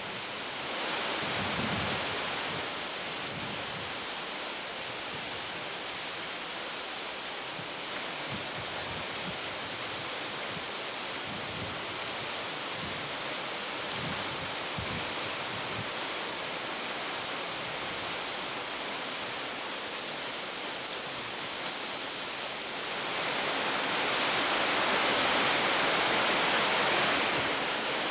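Steady rushing noise of heavy rain, swelling louder about a second in and again for several seconds near the end.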